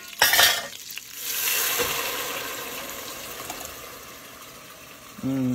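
A short clatter, then tomato sauce poured into a pot of hot oil and onions sizzling: the hiss swells about a second in and slowly dies away as the sauce cools the oil.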